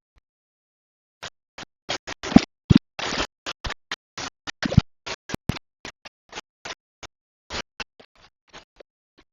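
An irregular run of short scrapes and knocks from kitchen utensils working on cookware or a board. The sounds start about a second in, come thickest and loudest between two and five seconds in, then thin out to scattered taps.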